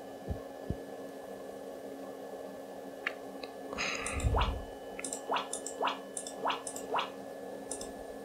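Computer card-game sound effects from a KDE poker game, playing through the iMac G3's built-in speakers. A short rushing burst comes about four seconds in, followed by a run of about five quick downward-sweeping swishes as cards are drawn and turned. A faint steady hum runs underneath.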